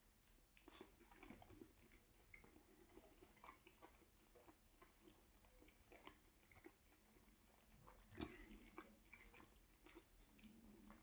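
Faint, close mouth sounds of a person chewing and biting a chicken and cheese sub sandwich: irregular small wet clicks and smacks, a little louder about eight seconds in.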